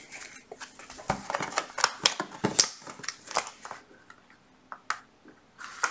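Pokémon trading cards being handled on a stack: quick light clicks, taps and short card-on-card scrapes for about three and a half seconds, then a single click near the end.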